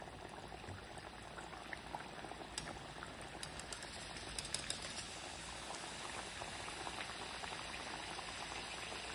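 Papdi dough rounds deep-frying in hot oil in a steel kadhai on low flame, a fresh batch bubbling and crackling steadily. A few sharper clicks come near the middle as a wire skimmer stirs through the pan.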